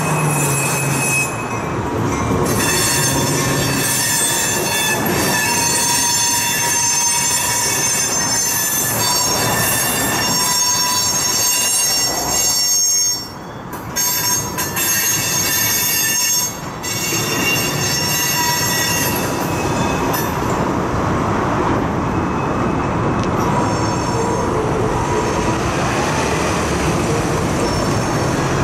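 Freight train of tank cars rolling slowly past, its wheel flanges squealing in several high steady tones over the rumble of the wheels. The squeal fades away about twenty seconds in, leaving road traffic noise.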